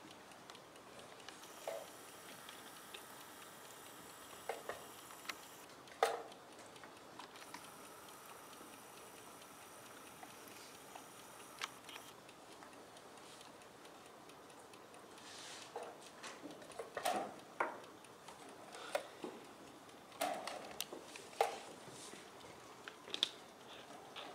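Mechanical analogue chess clock ticking, with scattered sharp clicks and knocks that come more often in the second half.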